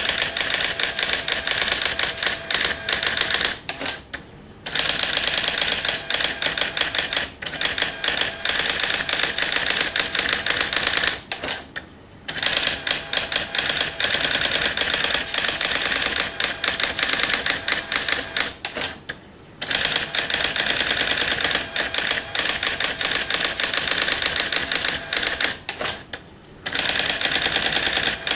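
Brother AX-20 electronic daisy-wheel typewriter printing, a fast, continuous run of sharp character strikes. The strikes break off briefly about every seven seconds.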